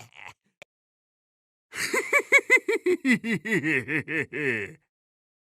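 A person laughing in a quick run of "ha-ha" pulses, about four to five a second, starting after a short pause. The pitch starts high and slides down as the laugh goes on, lasting about three seconds.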